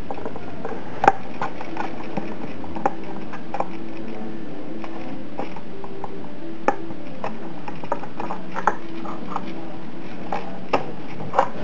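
Small servos in a model helicopter whirring in short spurts that step up and down in pitch, with scattered light clicks and taps from handling the airframe over a steady hiss.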